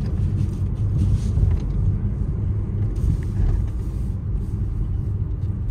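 Cabin sound of a Porsche 718 Cayman GTS 4.0's naturally aspirated 4.0-litre flat-six pulling along at a steady pace, a low drone mixed with road noise, heard from inside the car.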